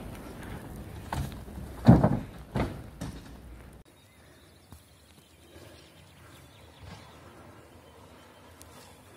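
Several heavy thumps from a mountain bike and its rider on a dirt trail, the loudest about two seconds in, over outdoor background noise. After about four seconds only faint outdoor ambience remains.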